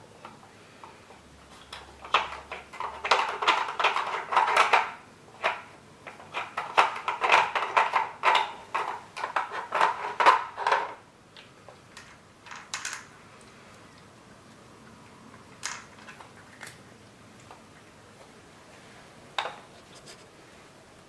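Cat working a plastic Trixie Brain Mover feeding puzzle with its paws, making rapid plastic clicks and clatter as the sliding covers and pieces are knocked and shoved about. The clatter comes in dense runs for most of the first half, then thins to a few single clicks.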